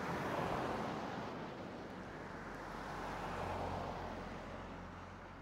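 Motor vehicle noise: a steady rushing sound that swells twice, with a low engine hum underneath.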